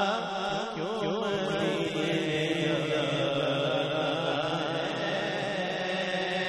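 A man singing a naat into a microphone, drawing out a long wavering melismatic line over a steady held drone.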